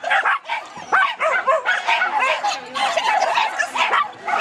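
Dog barking in quick, high-pitched yaps, several a second, without a break.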